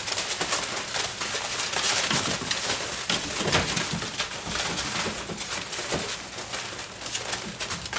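Young Doberman puppies play-growling and yipping as they tussle, over a constant rustle and scratching of paws scrambling through wood shavings.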